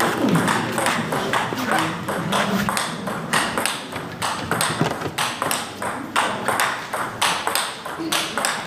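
Table tennis warm-up rally: the ball clicking off the rackets and bouncing on the table in a quick, even rhythm, several clicks a second.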